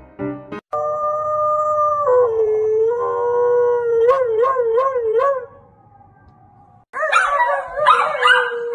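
A husky's long howl, dropping in pitch about two seconds in and wavering up and down near its end. About seven seconds in, a small dog howls. A few piano notes are heard at the very start.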